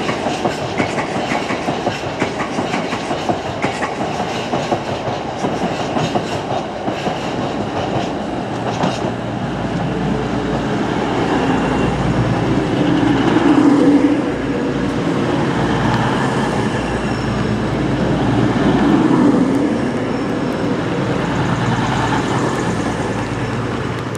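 Loaded freight hopper wagons rattling past over the rails with a clickety-clack. From about ten seconds in, a Class 222 Meridian diesel multiple unit runs past close by, its underfloor diesel engines making a steady low hum that swells twice as its cars go by.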